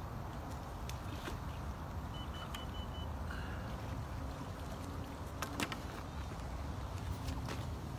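Steady low wind rumble on the microphone, with a few scattered clicks. A little after two seconds in, a quick run of about five short, high electronic beeps.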